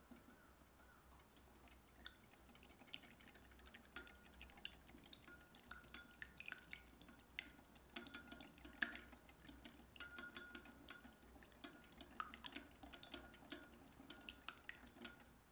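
Silicone-coated whisk beating a raw egg in a glass bowl: faint, quick, irregular wet clicks and taps against the glass, growing busier after a few seconds, with a faint ringing tone.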